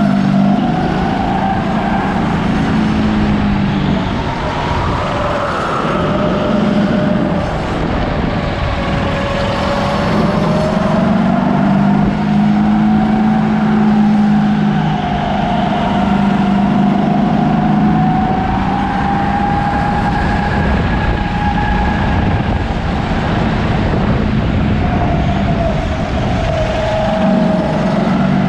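Racing kart engine running continuously, its pitch falling and rising slowly as the kart slows and speeds up through corners.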